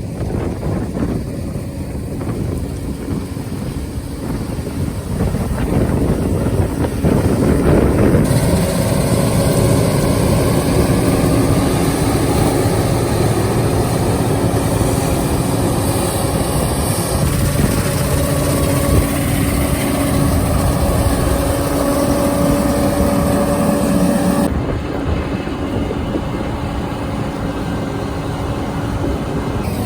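Combine harvester engine running steadily under load while cutting wheat, a constant mechanical hum with a low rumble. The sound changes abruptly about 8 seconds in and again near 24 seconds.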